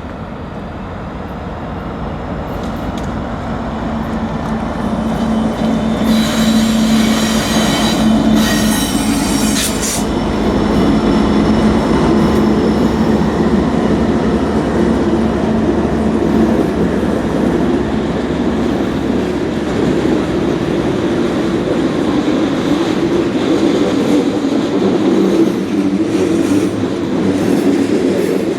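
Freight train with two diesel locomotives approaching and passing, their engines growing louder, then the steady rumble and wheel clatter of tank cars rolling by. Two loud, sustained high-pitched tones sound about six and eight seconds in.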